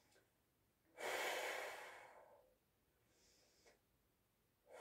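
A woman's long, audible breath out about a second in, fading over a second and a half, then a faint short breath and another breath out starting near the end, as she holds a full-body stretch lying on her back.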